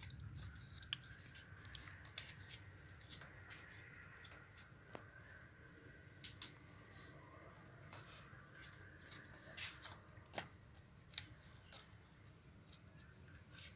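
Faint, irregular clicks and scratchy rustles of hands working in clear plastic cups of cocopeat, pressing water spinach seedlings into the medium.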